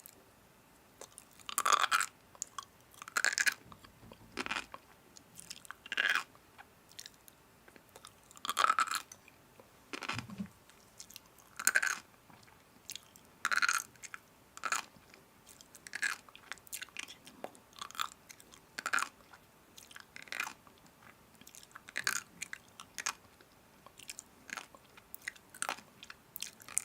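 Crunchy food being bitten and chewed: a loud crunch every second or two, with quieter chewing crackles between.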